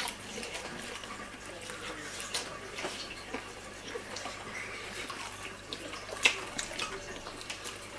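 Faint, irregular clicks and crackles of people eating and handling fried chicken, with one sharper click about six seconds in.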